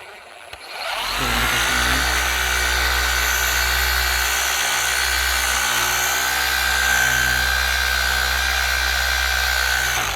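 Electric polisher with a foam pad spinning up about a second in, then running at a steady, even whine while working wax into plastic bumper trim, and switching off near the end.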